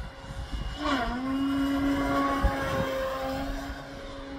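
Motor and propeller of an AJ Aircraft 61-inch Slick radio-controlled aerobatic plane in flight: a steady drone whose pitch drops sharply about a second in, then holds steady.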